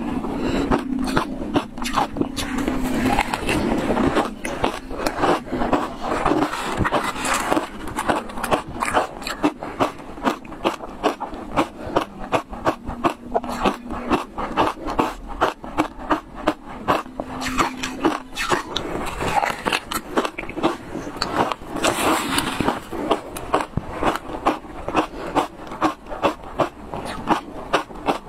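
Close-miked crunching of shaved ice as it is bitten and chewed: a fast, steady run of crisp crunches, several a second.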